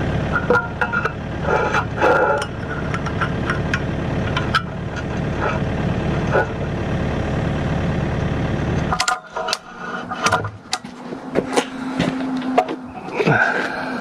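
Kubota KX080-3 excavator's diesel engine running steadily, with sharp metal clanks and knocks over it, then stopping abruptly about nine seconds in. Scattered metal clinks and taps follow.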